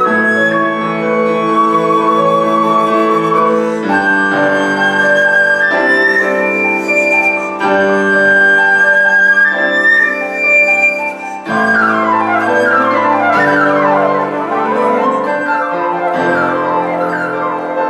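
Flute and grand piano duet: the flute holds long high notes over piano chords, then about two-thirds through the music breaks into rapid rising and falling runs.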